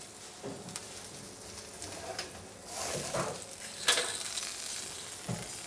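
Seared venison saddle sizzling in a hot pan as it is taken out of the oven, with a few metallic knocks of the pan and rack and one sharp clank about four seconds in.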